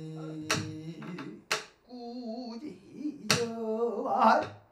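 Pansori singing: a male voice holding long sung notes, accompanied by three sharp strokes on a buk barrel drum.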